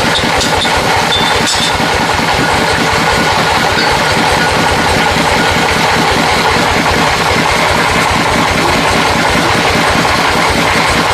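An engine running steadily with a fast, even low chugging.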